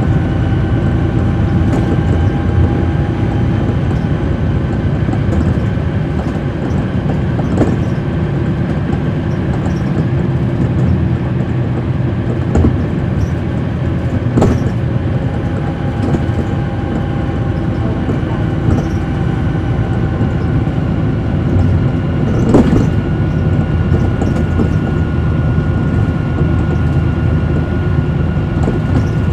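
Cabin sound of a NABI 40-foot transit bus underway, its Cummins ISL9 diesel running steadily with a faint whine that fades a few seconds in and comes back near the middle. A few sharp knocks and rattles from the body, the loudest about three quarters of the way through.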